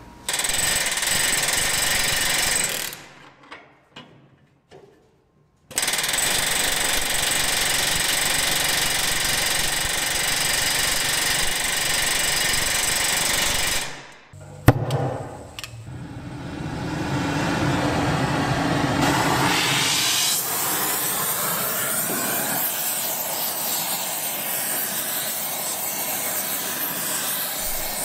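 A power tool runs steadily in long stretches with a high whine over dense noise. It stops abruptly twice, there is a sharp knock about fifteen seconds in, and a rougher, steady tool noise follows to the end.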